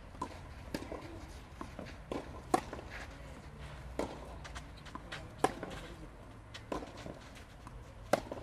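Tennis rally on a clay court: sharp strikes of racket strings on the ball traded back and forth about every one and a half seconds, alternately louder and softer, with a few fainter knocks between.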